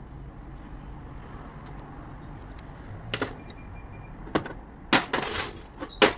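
Scattered sharp metallic clicks and knocks, irregular and sparse, the loudest near the end, with brief faint ringing, as parts and tools are handled during starter motor repair.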